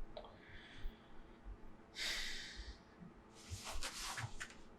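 A man breathing audibly in a quiet room: a breath about two seconds in and another near the end.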